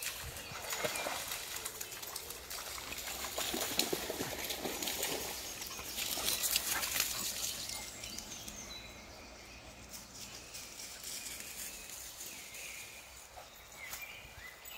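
Dogs splashing and wading through shallow water in the first half or so. It then turns quieter, with small birds chirping.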